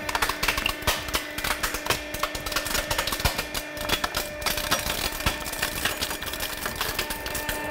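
Plastic body of a toy police car crackling and snapping as a hydraulic press crushes it flat: a dense, irregular run of sharp cracks over a steady hum.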